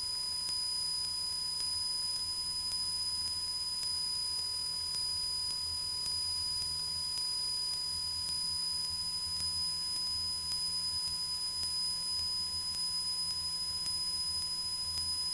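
Cessna 172's engine running steadily in flight, heard as a muffled low drone through the headset intercom, with a thin steady high-pitched electronic whine over it.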